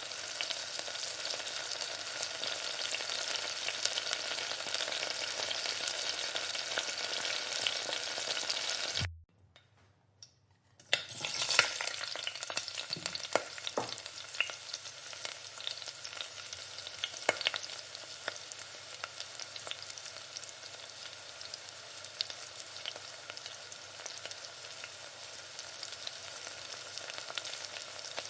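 Chicken Changezi frying and sizzling in a pan while being stirred, with the spoon clicking and scraping against the pan. The sizzle cuts out for about two seconds near the middle, then comes back with a flurry of stirring clicks.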